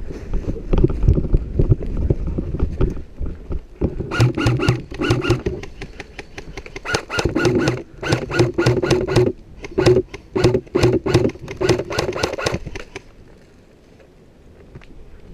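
Airsoft electric guns firing several bursts on full auto, the gearbox whirring under a fast run of sharp clicks. Low rumbling movement noise comes before the first burst.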